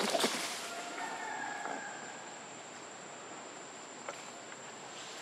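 Outdoor ambience: a steady hiss with a thin, high, unbroken whine. A burst of crackling rustles comes in the first half-second, and a faint pitched call about a second in.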